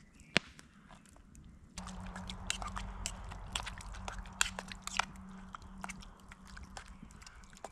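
A single sharp click about half a second in, then from about two seconds in a wood fire crackling and popping irregularly under a steady low hiss.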